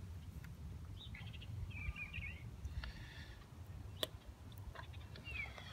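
Faint bird chirps over a low steady background rumble, with a single sharp click about four seconds in.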